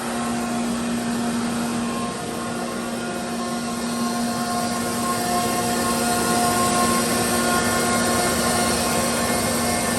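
Sullivan Palatek 50UD 50-horsepower rotary screw air compressor running, a steady rushing noise with a held hum and a few fainter steady tones, growing a little louder about halfway through.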